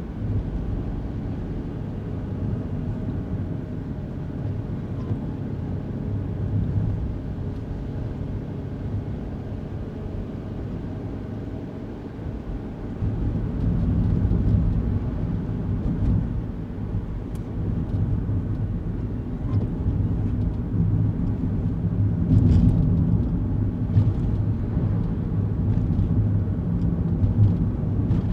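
Kei car driving, heard from inside the cabin: steady low engine and road rumble that grows louder about halfway through.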